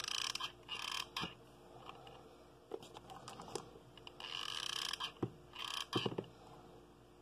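Handling sounds from hot-glue crafting: scattered sharp clicks from a hot glue gun being worked and small stones knocked together on the tabletop, mixed with short rustles.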